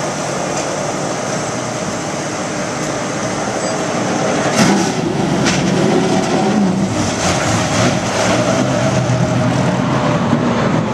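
Steady rumble of race-truck engines with a few sharp clanks, growing louder about four and a half seconds in.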